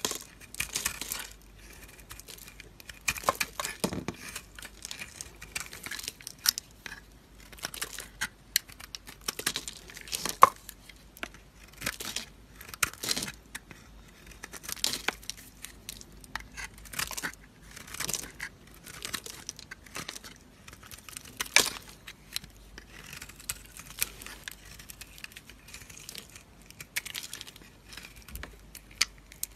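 Snap-off utility knife blade shaving and carving a bar of soap: a run of short scraping cuts, one after another at irregular intervals.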